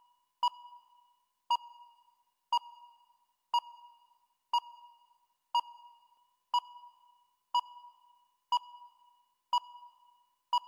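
Answer-time countdown timer beeping once a second, a short electronic ping with a brief ringing tail, eleven times as the contestant's answer time runs out.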